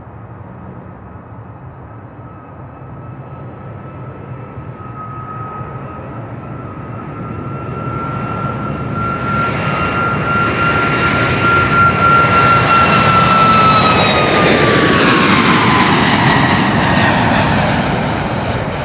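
Boeing 737 MAX's CFM LEAP-1B turbofan engines at takeoff power on the takeoff roll and climb-out: a jet rumble with a high fan whine that grows steadily louder as the airliner approaches, then falls in pitch and fades slightly as it passes near the end.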